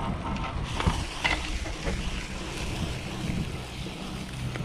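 Wind buffeting the microphone of a chest-mounted action camera on a moving bicycle, a steady low rumble.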